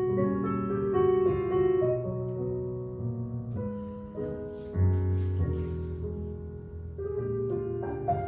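Piano music for ballet class: a jazz-style piano accompaniment playing chords over a moving bass line.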